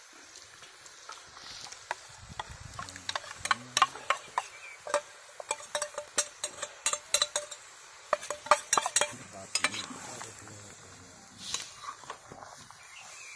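Metal spatula clanking and scraping against a steel wok as chunks of raw pork with onion, tomato and spice paste are stirred together. There is a quick run of sharp clinks from about three to ten seconds in.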